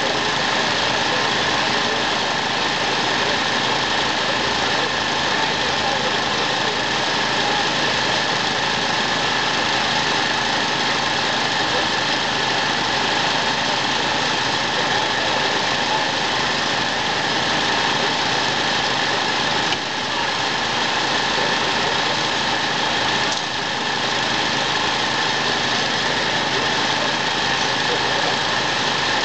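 An engine idling steadily at a rescue scene, an even mechanical drone with a slight pulsing low end, unchanged throughout.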